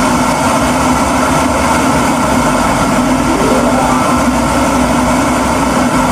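Electric kettle heating water: a loud, steady rushing noise with a faint rising tone about three and a half seconds in.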